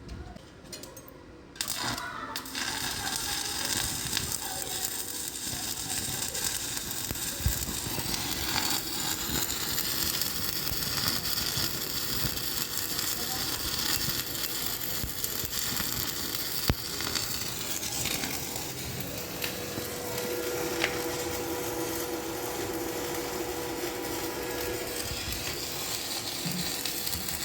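Stick-welding arc burning a 3.2 mm E7018 electrode at 100 amps: it strikes about two seconds in and then runs as a steady crackling hiss with occasional sharp pops.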